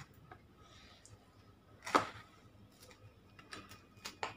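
Knife cutting through the crisp deep-fried bread crust: quiet, with one sharp crack about two seconds in and a few lighter crunches near the end.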